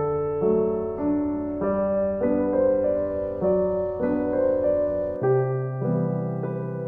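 Background piano music: a gentle, slow piano piece with notes and chords changing about every half second.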